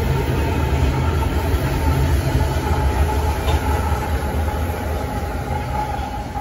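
BNSF diesel locomotive passing at close range, its engine a heavy low rumble with a faint steady whine above it, and freight cars rolling on the rails; the sound eases off slightly near the end.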